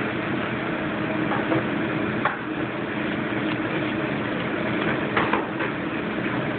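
Steady low mechanical hum of kitchen equipment, with short knife sounds on the salmon and cutting board about two seconds in and again about five seconds in as the fish is scored.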